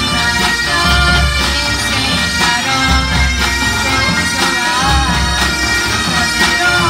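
Pipe band playing: Highland bagpipes carry the melody over their steady drones, with snare and bass drums beating in time.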